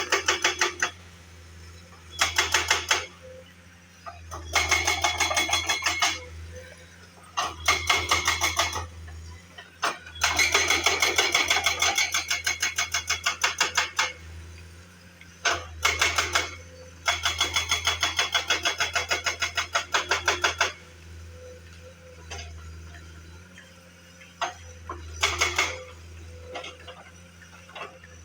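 Powered road-repair machine hammering in bursts of rapid, evenly spaced blows, a second to four seconds at a time with short pauses between, over a steady engine hum.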